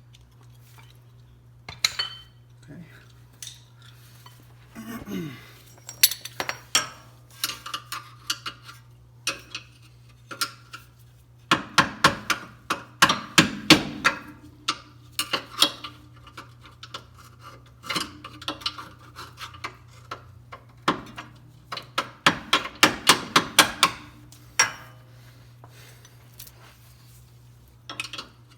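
Hand tools and metal suspension parts clinking and knocking during control-arm work, with two runs of rapid clicking, one about twelve seconds in and one about twenty-one seconds in. A faint steady low hum sits underneath.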